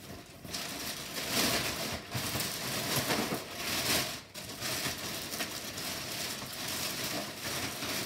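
Clear plastic packaging crinkling and rustling as hands pull at and handle it, in irregular swells.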